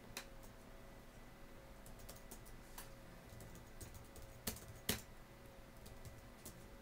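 Scattered sharp clicks and taps over a faint steady hum, the two loudest a half second apart about four and a half seconds in.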